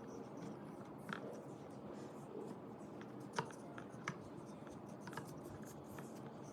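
Faint scratching and rubbing of handwork on small parts, with a few sharp clicks, the loudest about three and a half seconds in.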